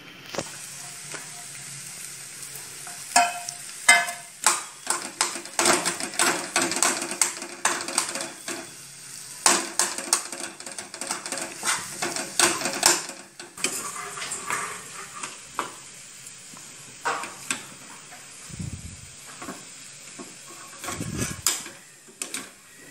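Slotted steel spatula scraping and clacking against a steel pan as boiled potatoes and fresh coriander are stirred into hot oil, over a faint frying sizzle. The strokes come in a quick run of scrapes for about ten seconds, then thin to occasional strokes near the end.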